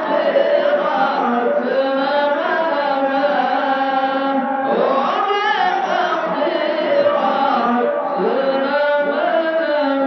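Chant-like singing by several voices at once, long wavering held tones layered over one another without a break.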